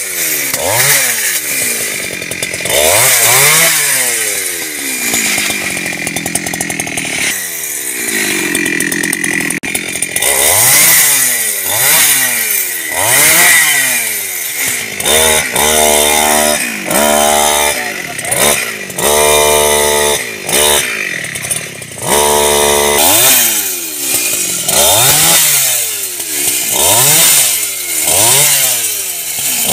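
Small two-stroke petrol chainsaw revving up and falling back over and over as the throttle is squeezed and released, roughly once a second or so, with longer steady stretches in the middle while it cuts through mù u (Alexandrian laurel) branches.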